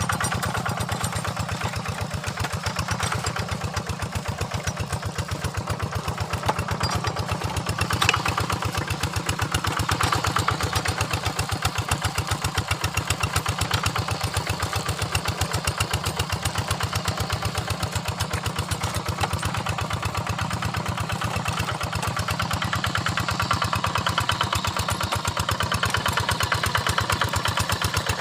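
Single-cylinder diesel engine of a Quick Impala hand tractor running steadily with a fast, even firing beat. A sharp knock sounds about eight seconds in.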